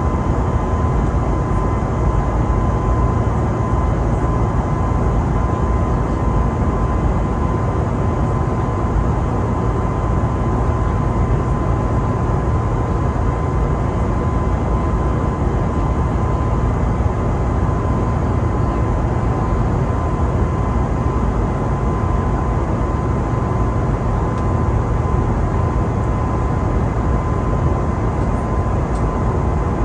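Steady cabin noise inside an Airbus A320neo airliner in flight: an even rush of engine and airflow noise with a deep rumble underneath and a thin steady tone above it.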